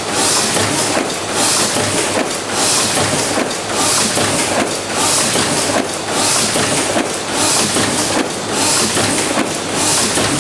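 Automatic die-cutting machine running, its mechanism clattering in a steady repeating cycle about once a second.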